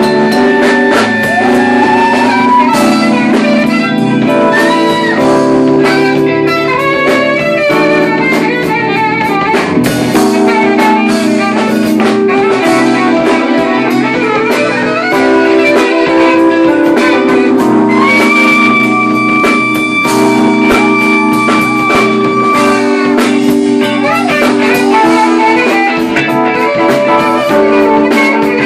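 Live band playing loud with drum kit, electric guitar and saxophone. Notes bend up and down, and one long note is held in the second half.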